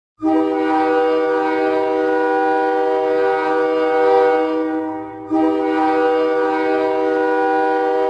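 Ice hockey goal horn: a loud, steady horn blast of several tones sounding together that dies away after about five seconds, then a second blast starting right after.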